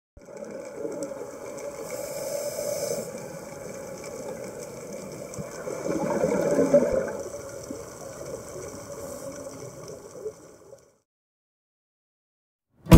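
Muffled underwater noise picked up by a camera in a dive housing, a gurgling wash of water and bubbles that swells twice, about two and six seconds in, then cuts off about eleven seconds in.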